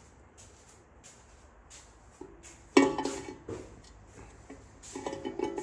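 Metal clinks of an outboard's forward gear and bearing being fitted into the gear case: one sharp clank with a brief ring about halfway through, then a run of lighter ringing clinks near the end.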